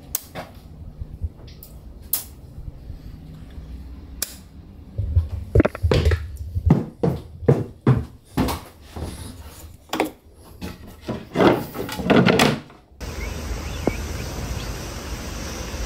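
A switch clicks on a boat's electrical panel, then comes a run of loud knocks and clatter from wooden cabin doors and panels being handled. About thirteen seconds in it cuts to a steady outdoor hiss of rain and wind.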